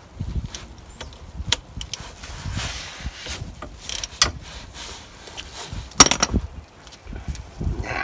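Ratchet and spanner clicking and clinking on the bolts of a rear brake caliper as it is unbolted, with scattered metal knocks from handling. The loudest clatter comes about six seconds in.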